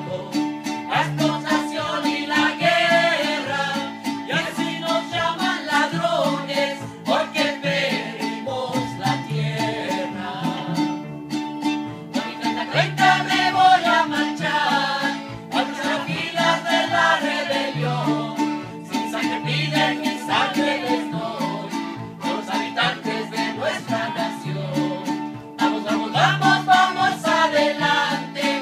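Live band music: singing over strummed acoustic guitar and accordion, with a steady, repeating bass line underneath.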